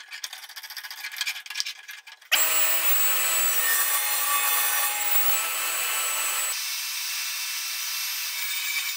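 Light clicks of the hold-down clamp and guard being handled. About two seconds in, a loud, steady power-tool noise starts abruptly and keeps running, dropping slightly partway through.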